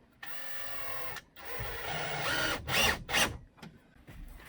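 Power drill driving screws to mount a dryer outlet: two short runs of the motor whine, the second louder, followed by two quick sharp noises.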